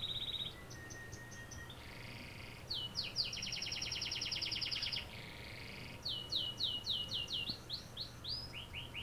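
Songbirds singing: a run of phrases made of rapid series of high down-slurred notes, several a second, mixed with short trills and buzzy notes.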